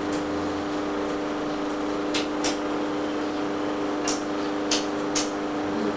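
Steady room hum with a constant pitch and a hiss under it, with about five short, sharp ticks starting about two seconds in.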